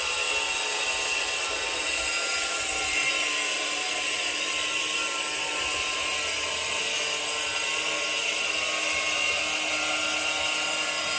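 Electric power tool running steadily without a break, with a high whine.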